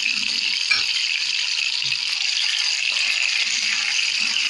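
Stuffed, boned chicken rolls sizzling in hot ghee and oil in a frying pan, a steady sizzle throughout, with a few soft knocks as a second roll is laid in the pan.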